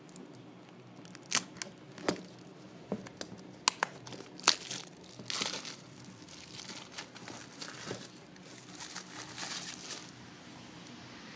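Plastic wrapping being torn open and pulled off a boxed set, with several sharp snaps and tears in the first few seconds, then crinkling of the plastic that stops about ten seconds in.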